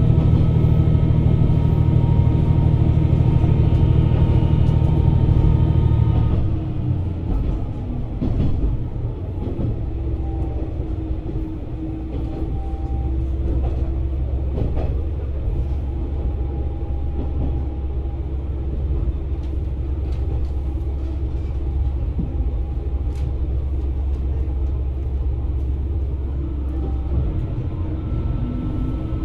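KiHa 120 diesel railcar running along the line, heard from on board: a steady engine drone over the rumble of the wheels. About six seconds in the drone drops to a quieter, lower note and runs on evenly, rising again near the end.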